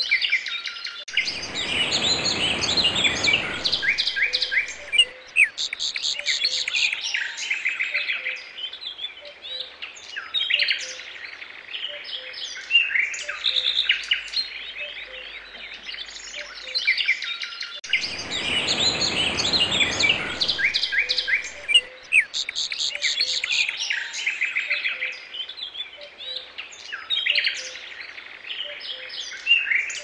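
A chorus of many small birds chirping, trilling and singing over one another, a looped recording that repeats about every 16 seconds. A louder, harsher noisy sound of about three seconds joins the chorus about a second in and again about 18 seconds in.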